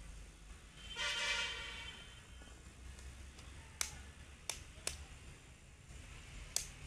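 Duck eggs being cracked against a metal bowl: four short, sharp taps in the second half. About a second in, a brief loud pitched sound with even overtones, the loudest thing heard.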